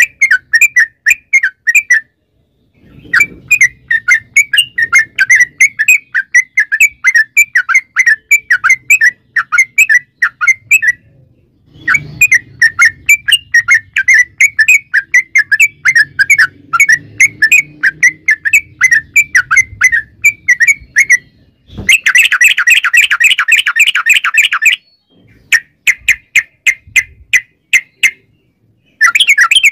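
Caged yellow-vented bulbul (trucukan) singing hard: long runs of quick, repeated chirping notes, broken by short pauses, with a denser and louder stretch about two-thirds of the way through.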